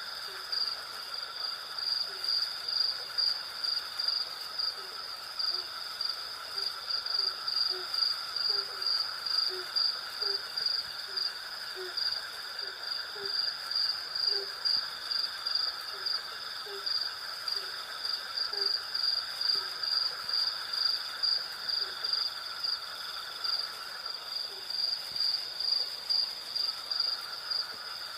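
Night chorus of crickets and other insects: a high chirping that pulses steadily a few times a second over a steadier, lower trill that drops out for a few seconds near the end. Through most of it runs a string of short, low hoot-like calls, about two a second, fading out near the end.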